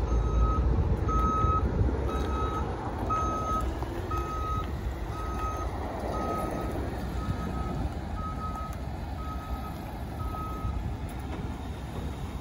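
A vehicle's reversing alarm beeping about once a second in a steady single tone, stopping near the end, over a low vehicle rumble and wind noise.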